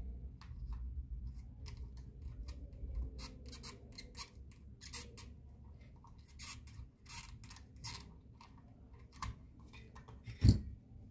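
Irregular sharp clicks and snips of a small hand tool working on an amplifier circuit board, with one louder knock near the end.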